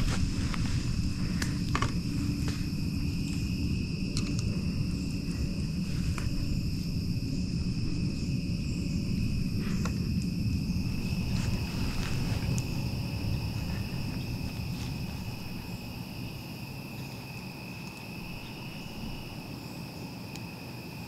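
Insects trilling steadily in a continuous high chorus, under a low rumbling noise that fades away after about fifteen seconds, with a few faint clicks.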